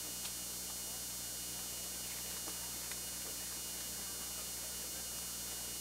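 Steady low electrical hum under an even hiss, with a couple of faint ticks, and no other clear sound.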